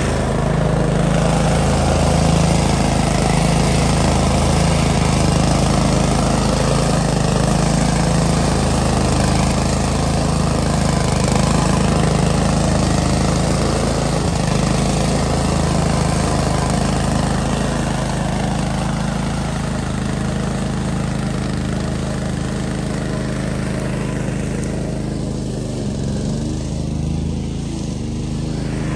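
DR Field & Brush Mower's engine running steadily, a constant low engine drone.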